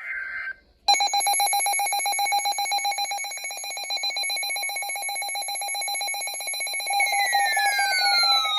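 Weather-radio alert alarm: a brief burst of warbling alert data tones at the start. About a second in, a loud, rapidly pulsing electronic beep tone begins and holds. Near the end, downward-sweeping tones join in.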